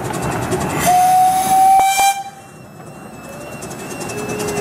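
Miniature steam locomotive's whistle: one steady blast of about a second, with a hiss of steam. Then the train runs on, quieter at first and growing louder near the end.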